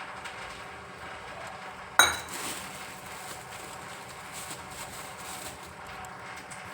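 A single sharp metallic clink of a utensil against a pan about two seconds in, ringing briefly, over a faint steady background.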